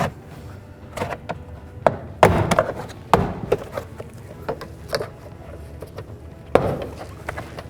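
Plastic door-panel retaining clips snapping out of the door one after another as a trim tool pries the panel off: a series of sharp pops and knocks, the loudest a little past two seconds, about three seconds in and about six and a half seconds in, with rubbing and rattling of the panel in between.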